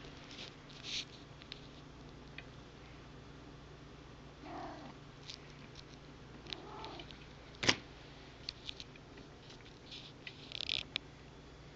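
Domestic cat giving two short, soft calls, about four and a half and seven seconds in, with a sharp click between them and brief rustling of fur or handling near the start and end.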